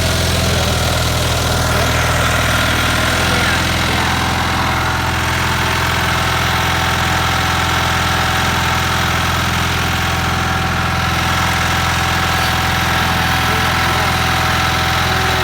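Tractor engine idling steadily, with a slight change in its note about three seconds in.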